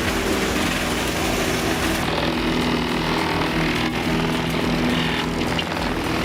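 Diesel engine of an industrial wood chipper running steadily with a low hum. The sound changes abruptly about two seconds in and loses its high hiss.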